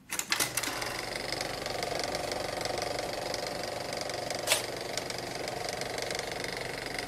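Steady, rapid mechanical clatter like a machine running, starting with a few knocks and holding level throughout, with one sharp click about four and a half seconds in.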